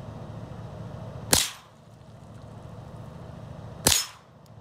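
Two gunshots from a shoulder-fired long gun, about two and a half seconds apart, each a sharp crack that dies away quickly.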